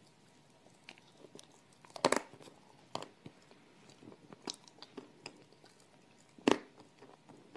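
Close-up crunching as a person bites and chews crunchy food: a few sharp crunches, the loudest about six and a half seconds in, with quieter chewing between.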